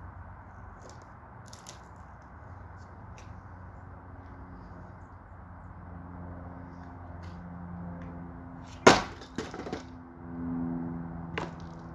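White-painted wooden bed-frame rail smashed down hard about nine seconds in: one loud crack of breaking wood, then a few lighter knocks as the pieces fall, and another knock near the end.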